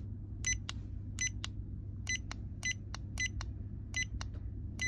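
Handheld RF/LED facial beauty device beeping as its power/LED-select button is pressed again and again: seven short high beeps, each followed by a click, about one every 0.7 s. Each press steps the device to its next LED colour mode.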